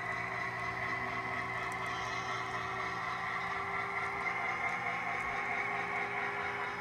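Model railroad locomotive running during yard switching: a steady mechanical drone with a faint, even whine.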